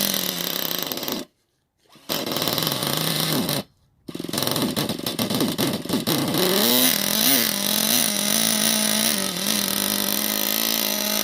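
Small nitro RC car engine running with a high, buzzy note. It cuts out completely twice in the first four seconds, revs up and down a few times, then settles into a steady idle. Its owner says it doesn't sound healthy.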